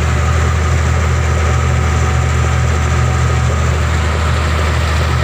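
Bulldozer's diesel engine running steadily with a deep, even note.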